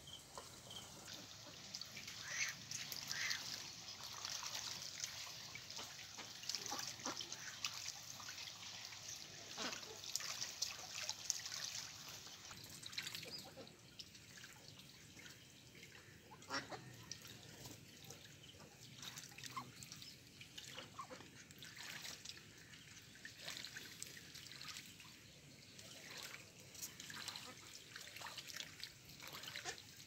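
Domestic ducks dabbling with their bills in shallow water, making faint dribbling and dripping sounds and small splashes, with occasional quiet duck calls.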